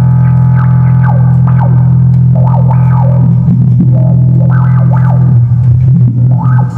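Roland VA-7 arranger keyboard playing a distorted electric-guitar sound: a loud held low chord with repeated sliding, falling notes above it, fading near the end.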